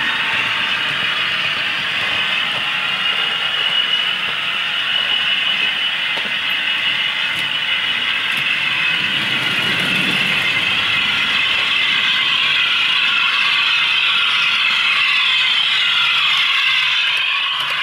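Model railway locomotive running on the layout, its DCC sound decoder playing locomotive sound through a tiny onboard speaker that gives a thin, high-sounding tone, mixed with the small mechanical whirr and clatter of the model's motor and wheels on the track.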